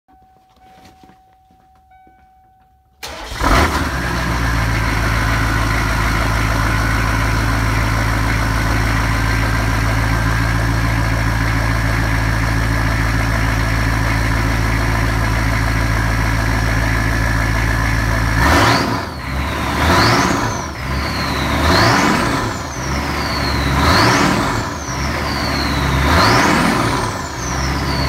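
Turbo-diesel Hummer engine starting about three seconds in, then idling with a steady turbo whine over the open exhaust. In the last ten seconds it is revved five times, and each blip brings a high turbo whine that rises sharply and falls away slowly.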